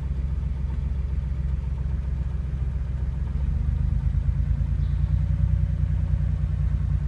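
Porsche engine idling steadily with a tapping sound, the knock the owner is trying to diagnose. It gets a little louder about halfway through.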